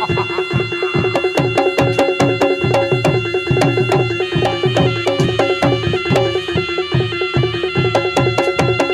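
Live reog gamelan music. Hand drums beat a fast, even rhythm with sharp clicking strokes over a steady held tone, and a high melody line starts moving between notes about four seconds in.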